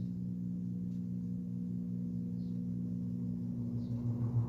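Vintage Edison variable-speed box fan's motor humming steadily, a low electrical hum of several steady tones. Near the end the rush of air begins to build as the speed dial is turned up.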